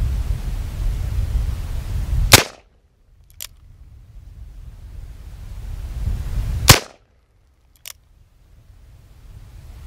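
Two gunshots from a Cimarron 1858 New Army conversion revolver in .45 Long Colt, about four seconds apart, each followed about a second later by a faint click. Wind rumbles on the microphone between the shots.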